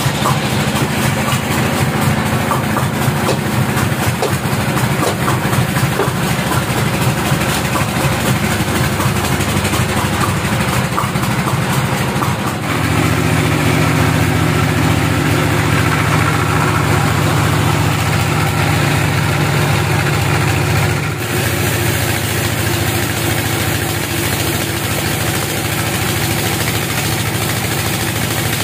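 Band sawmill running with a loud, steady machine hum; the note shifts about thirteen seconds in and again about twenty-one seconds in.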